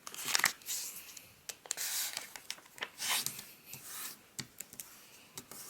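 A square of origami paper being folded diagonally in half and creased by hand. The paper gives several rustling, scraping strokes as the crease is rubbed flat, with a few light ticks.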